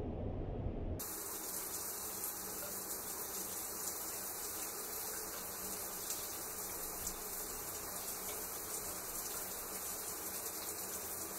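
Overhead shower running: a steady hiss of spraying water that starts abruptly about a second in, replacing a low rumble.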